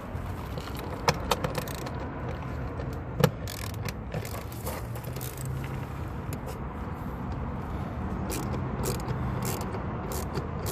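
Hand tool working the lower fasteners of a Ford F150 door panel: scattered clicks and scrapes, with a few sharper knocks about a second in and about three seconds in, over a steady low hum.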